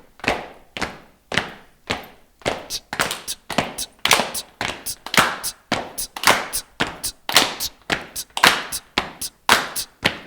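A steady rhythm of sharp percussive hits, about two a second, that grows busier with extra hits in between after a couple of seconds.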